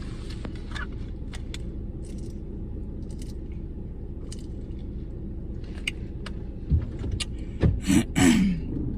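Keys jingling and small clicks over the steady low rumble of a car, heard inside the cabin. Near the end come a few louder knocks and a short voice-like sound.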